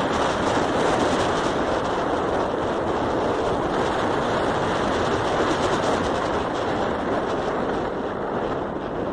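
Steady rush of wind on the microphone mixed with road and engine noise from a moving motorcycle, easing a little near the end as the bike slows.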